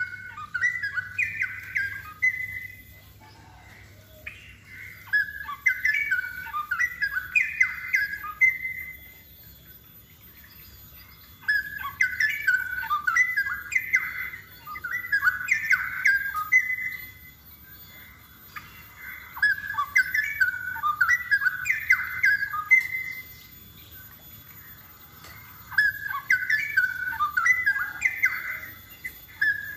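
Straw-headed bulbul (cucak rowo) singing its rich, bubbling warble in about five phrases of three to five seconds each, separated by short pauses.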